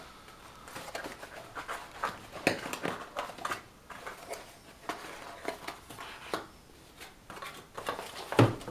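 Cardboard packaging being handled: a small cardboard accessory box rustling, scraping and tapping in irregular clicks as it is turned over and opened, with a louder knock near the end.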